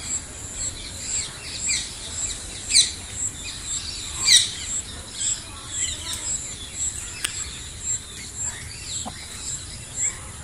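Insect chirping, a regular high pulsing a few times a second, with birds calling over it in quick falling whistles. The two loudest calls come a second and a half apart, a little under a third of the way in.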